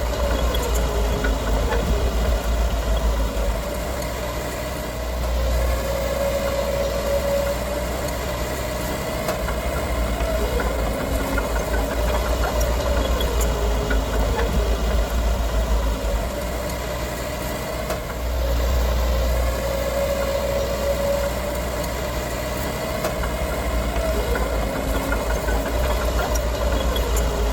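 Diesel engine of heavy earthmoving machinery running steadily, its pitch rising and falling several times as the load changes.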